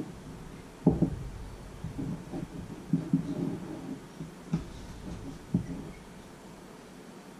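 A few dull knocks and thumps with low rumbling handling noise, the sharpest about a second in, as a cup and other things are handled on a wooden counter. It dies down near the end.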